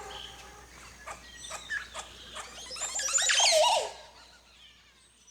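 Birds calling: a few sharp clicks, then about three seconds in a short burst of many quick squealing, warbling calls that stops suddenly.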